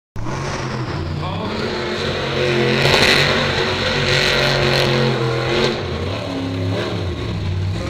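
Monster truck engine revving as the truck drives through the dirt arena, its pitch rising and falling and loudest about three seconds in.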